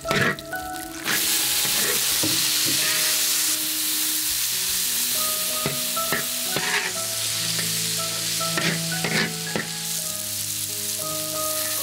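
Chinese sausage slices and pea pods sizzling in a hot wok, stir-fried with a spatula that scrapes and knocks against the wok now and then.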